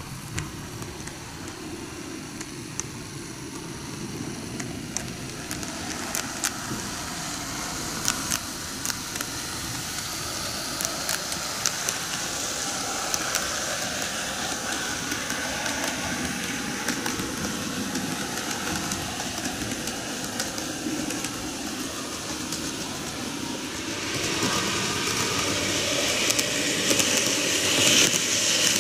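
TOMIX N-gauge model trains, a Meitetsu 8800 Panorama DX set and a KiHa 8200 set, running on track: a steady whir of motors and wheels, with small clicks through the middle. It grows louder over the last few seconds as the three-car KiHa 8200 train passes close by.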